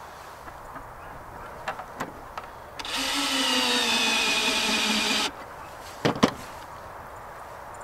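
Cordless drill with a driver adapter runs for about two and a half seconds, screwing a plastic watering nipple into the wall of a plastic bucket; its pitch sinks a little as the nipple snugs up. A couple of sharp knocks follow as the drill is set down on the table.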